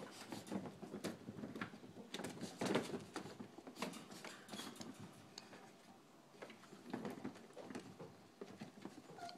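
Cavachon puppies playing and scuffling on a tiled floor: a light patter of paws and claws with scattered small knocks, faint overall, with a slightly louder flurry a little under three seconds in.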